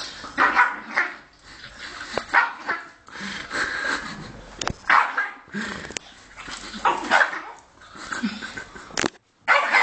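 Dog barking angrily in short barks roughly a second apart, unevenly spaced, with a few sharp clicks between them.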